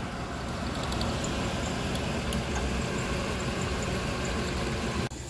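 A steady machine running, with a few light ticks over it, cutting off suddenly near the end.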